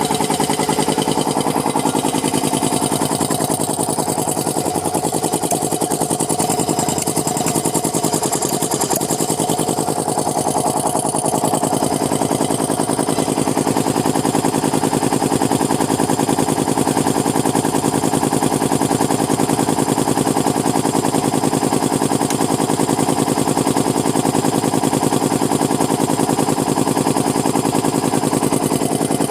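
3090 two-cylinder piston air compressor running steadily with a fast, even pulsing from its pump.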